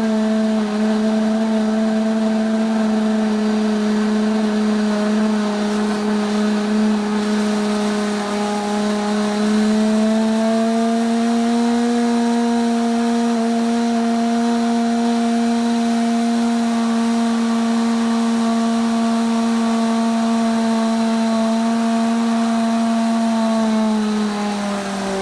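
Kuvings SV500 vacuum blender motor running at speed with a steady whine, its pitch rising a little about ten seconds in, then dropping near the end as the motor slows.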